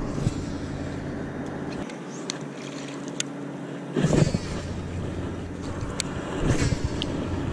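Wind rumbling on the microphone over a steady low hum, with a few sharp clicks and two louder gusts, about four and six and a half seconds in.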